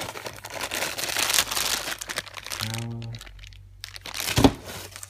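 Plastic packaging crinkling and rustling as parts are handled out of a box, with a brief voiced 'mm' about halfway through and a short sharp rustle with a thump near the end.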